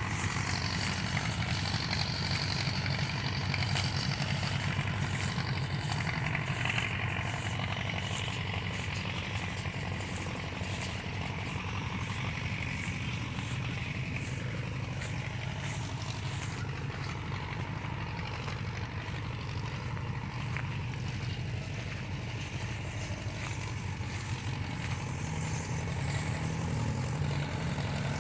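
Farm tractor engine running steadily, with faint regular ticking over it.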